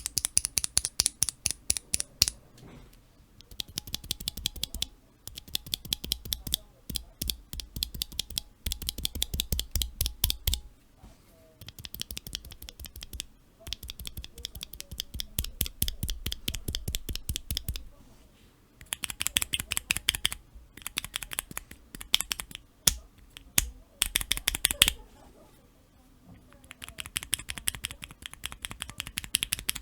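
Cherry MX Black linear key switches being pressed rapidly, giving fast runs of sharp clacks in bursts of a few seconds with short pauses between; some bursts carry a deeper thud as the switches bottom out.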